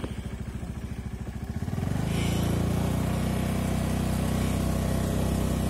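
Small motorcycle engine puttering at low speed, then picking up about two seconds in and running louder and steadier as the bike speeds up.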